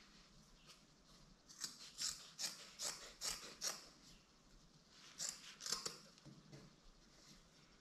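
Scissors snipping through plaid fabric: a run of six quick cuts, a pause, then two more.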